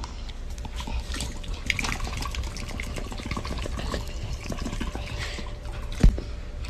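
Soft, irregular wet clicks and smacks of a dog mouthing and licking a hand, with rustling of bedding and one sharp bump about six seconds in.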